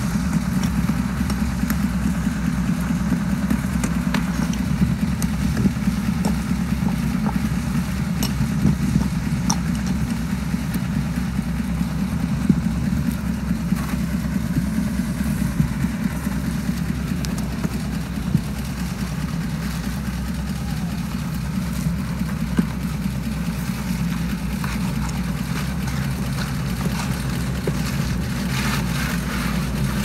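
Diesel engine of a transit mixer truck running steadily, a continuous low drone that keeps the drum turning during a concrete pour, with a few light clicks over it.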